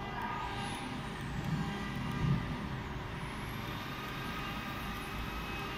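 Steady machine hum from a CNC router, with a faint high whine from its axis motors that rises and falls as the gantry is jogged into position to set the zero point. There are two brief louder low swells at about one and a half and two seconds in.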